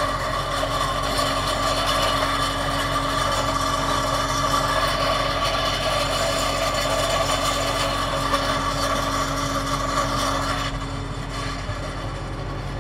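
Landini 65 Blizzard tractor engine running steadily under load while towing a Brillion pulverizer roller over the seedbed. Near the end the sound turns duller.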